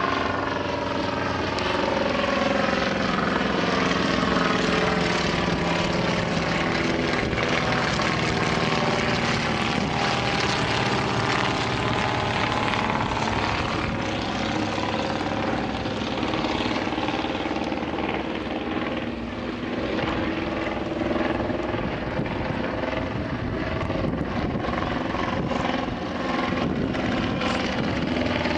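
Propeller engines of World War I replica fighter planes, biplanes and a Fokker Dr.1 triplane, flying overhead together. A steady drone whose engine notes slide in pitch as the aircraft pass.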